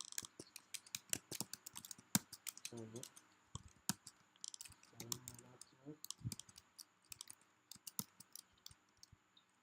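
Computer keyboard typing: a quick, uneven run of keystroke clicks, with short pauses between bursts.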